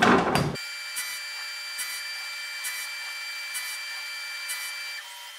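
Tormach 1100MX CNC mill's spindle whining steadily while a single end mill cuts finger notches into a CPM154 stainless knife blade. Short bursts of cutting noise come about once a second. It starts suddenly about half a second in and stops shortly before the end.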